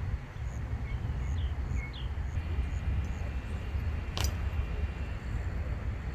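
Steady low rumble with one sharp knock about four seconds in, and a few faint high chirps in the first two seconds.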